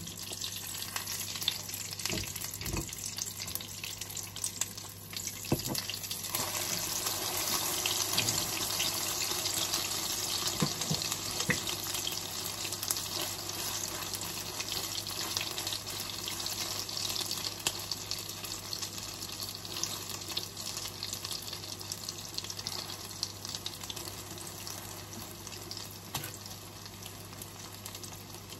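Tortang okra, okra in beaten egg, frying in hot oil in a pan: a steady sizzle with fine crackles that gets louder about six seconds in and eases off toward the end.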